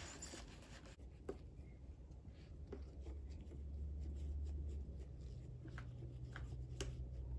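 Paper towel rubbing and dabbing on a plastic doll styling head's face, faint light scratching with a few soft ticks. A low steady hum sits underneath from about halfway.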